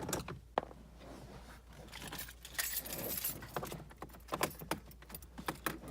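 Irregular light clicks and metallic rattling: a Torx bit driver working out a screw under the plastic steering column cover, with small tool and trim handling noises.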